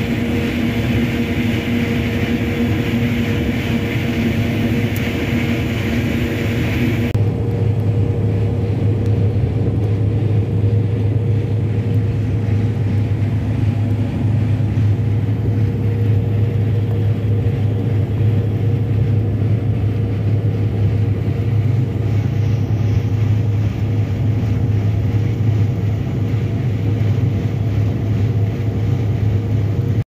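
Case IH 5140 Axial-Flow combine running steadily while harvesting corn. About seven seconds in the sound changes suddenly: the higher hiss drops away and a low, even hum grows stronger while grain streams into the grain tank.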